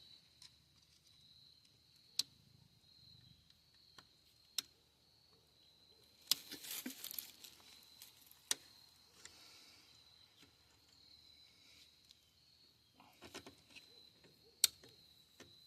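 Scattered sharp metal taps and clinks, with a short scraping stretch about six seconds in, as hand tools work at a rusted, seized front wheel hub assembly. A steady high cricket chirping runs underneath.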